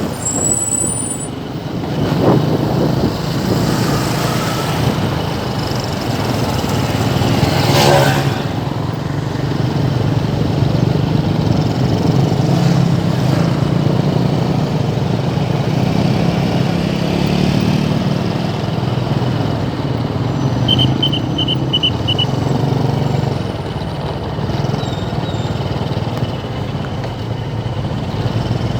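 Road traffic at a standstill jam, mostly motorcycles and cars with their engines running steadily. A louder vehicle passes close about eight seconds in, and a run of five short high beeps sounds about two-thirds of the way through.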